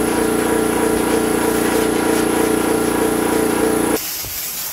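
A small engine runs steadily with an even, slightly pulsing hum, then stops abruptly near the end, leaving a faint hiss.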